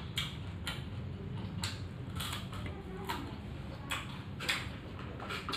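A person eating by hand: scattered, irregular chewing and lip-smacking clicks, with fingers working food on a plate, over a steady low hum.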